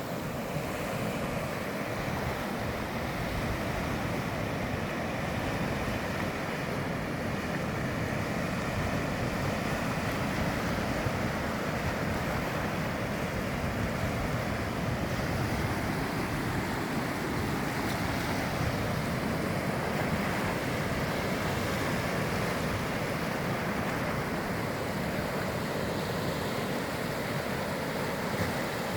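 Ocean waves washing onto a shore: a steady rushing noise of surf with no break.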